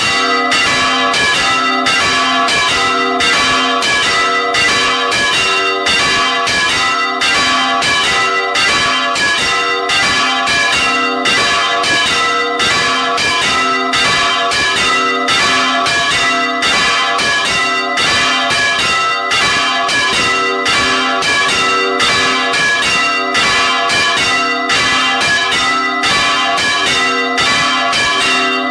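Two large church bells swung full circle in the Spanish manner (volteo), heard close up in the belfry: their clappers strike over and over at roughly two strikes a second, the rings overlapping without a break.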